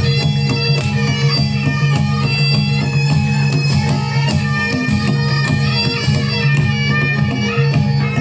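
Reog Ponorogo ensemble music: a reedy wind melody, in the manner of the slompret shawm, over a steady low drone, with drum and gong-chime strikes throughout.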